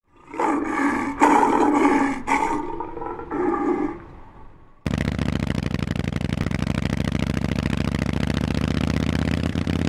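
A loud roaring sound effect with a few strong surges, fading out over its last second. About five seconds in it cuts abruptly to a Harley-Davidson Forty-Eight's air-cooled V-twin with Vance & Hines exhaust pipes, idling steadily.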